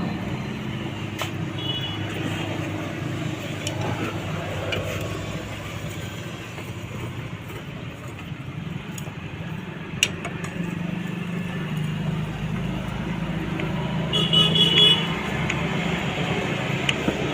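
Road traffic passing, with a vehicle horn tooting briefly near the end and a single sharp tap about ten seconds in.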